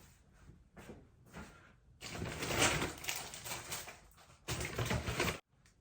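Plastic grocery bags and packaging rustling and crinkling as groceries are unpacked: faint at first, much louder from about two seconds in, then cutting off suddenly near the end.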